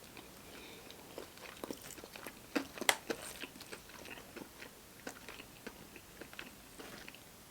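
Chewing and biting into Popeyes fried food close to the microphone: soft, irregular crunching and wet mouth clicks, with a sharper crunch about three seconds in.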